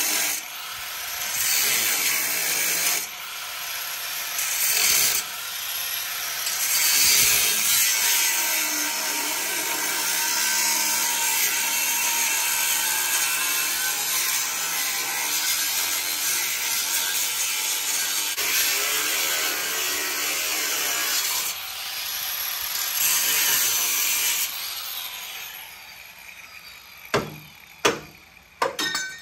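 Angle grinder with a thin cut-off wheel cutting through a steel truck frame rail, running under load with its level rising and falling as the cut goes on. It winds down about 25 seconds in, and a few sharp hammer knocks on the frame follow near the end.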